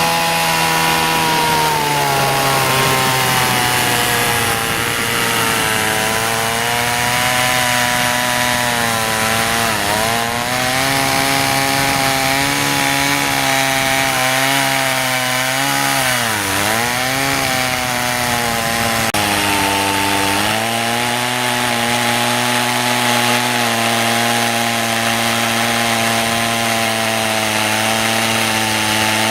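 Small Stihl 018 two-stroke chainsaw with a 12-inch bar running under load as it cuts into a big shea hardwood trunk. Its engine note is steady, with two brief dips in pitch about ten and sixteen seconds in.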